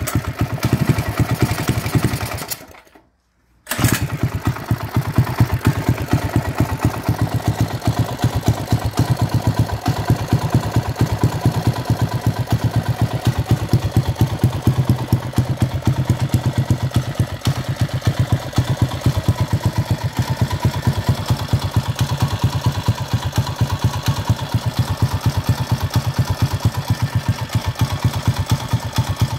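Predator 212cc single-cylinder engine on a mini bike, freshly started cold and running at a steady idle through a homemade exhaust with a silencer. It cuts out for about a second near three seconds in, then runs again steadily.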